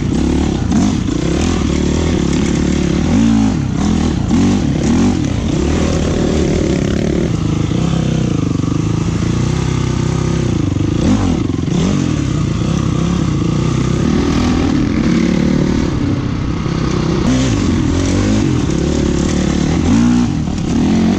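Enduro dirt bike engine running under load off-road, its revs rising and falling again and again as the rider works the throttle.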